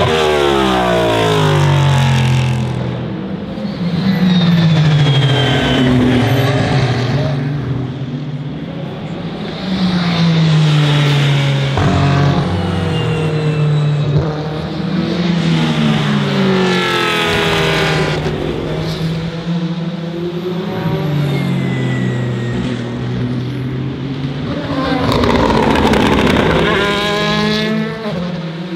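Racing cars passing at speed one after another. Each engine climbs in pitch as it accelerates and drops away as the car goes by.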